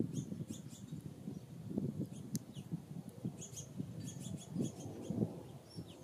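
Small songbirds giving short, high chirps here and there, over an uneven low rumble.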